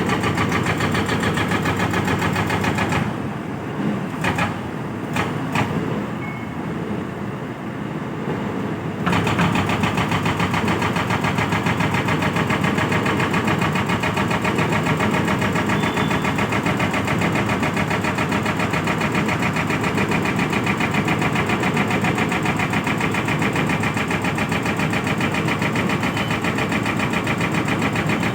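Excavator engine running steadily with an even, rapid pulse. Between about three and nine seconds in it gives way to a quieter, duller stretch with a few sharp knocks, then the steady running returns.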